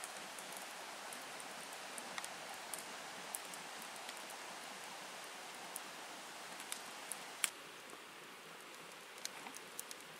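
Low, steady rushing outdoor background noise, sprinkled with scattered light ticks and snaps throughout.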